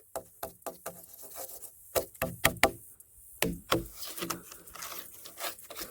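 A log knocked on again and again in an uneven series of short hollow knocks, some ringing briefly. The hollowness is the sign of a log gone bad inside: the owner guesses the tree was already dead when he cut it.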